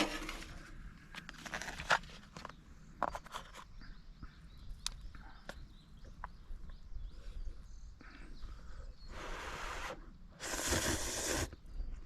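Handling noises: scattered light clicks and knocks with soft rustling, then two longer rustling swishes near the end.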